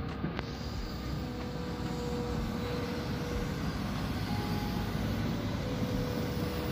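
An engine running steadily, with a rushing noise over it and a faint hum that shifts slightly in pitch.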